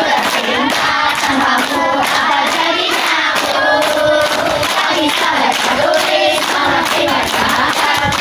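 A group of young schoolchildren singing together in chorus while clapping their hands along with the song.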